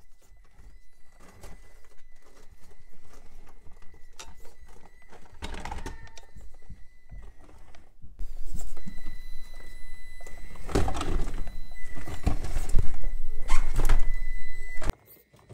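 Traxxas TRX4M micro crawler on its stock brushed motor and stock gears, whining thinly as it climbs rocks, with knocks and thunks of its tyres and chassis against the rock. It goes in fits and starts, the hesitant, lurching throttle response of the stock setup. The sound gets louder about halfway through, with the hardest knocks near the end.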